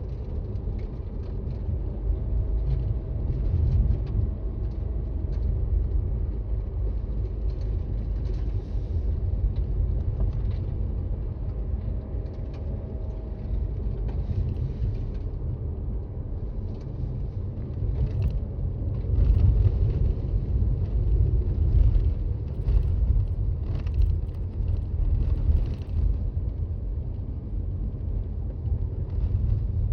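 Toyota Raize driving on snowy roads: a steady low road and engine rumble heard from inside the car. It grows louder and rougher, with scattered crackles, about two-thirds of the way through.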